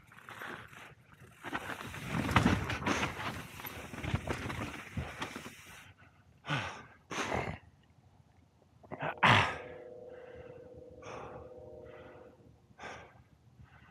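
Mountain bike riding over dirt and rock: tyres crunching and the bike rattling for the first few seconds. Then the rider's heavy, sharp breaths, the loudest about two-thirds through, followed by a short steady hum.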